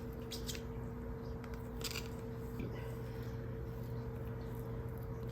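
Quiet room tone: a steady low hum with a few faint soft clicks, as food and foil are handled.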